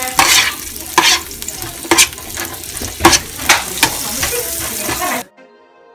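Sliced onions sizzling in oil in a frying pan, stirred with a plastic spoon that scrapes and knocks against the pan about once a second. The sound cuts off suddenly near the end.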